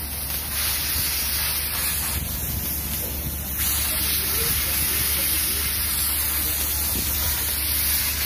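Steady, loud hissing rush from welding and cutting work on a ship's steel hull, over a steady low hum.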